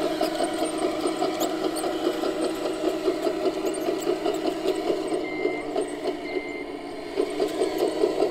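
Simulated diesel engine running steadily with a fast pulsing chug, played through an RC construction model's sound module. Two short high beeps come about a second apart near the end.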